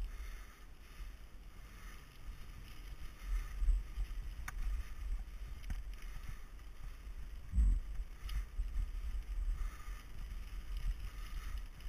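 Mountain bike riding down a dirt singletrack: a steady low rumble of wind and tyres on the mic, with a couple of sharp clicks and a thump about two thirds of the way through.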